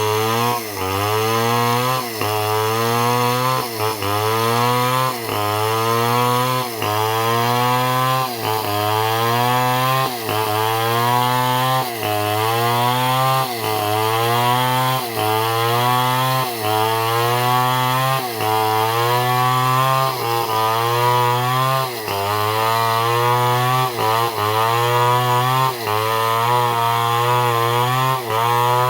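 Stihl MS 250 two-stroke chainsaw running at high revs while ripping wood lengthwise into boards. Its engine note climbs and then sags sharply about once a second in a steady rhythm.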